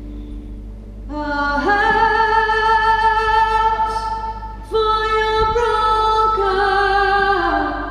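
Live music: a woman singing long held notes, the first rising into place about a second in, the next starting just before the five-second mark, and the pitch stepping down near the end.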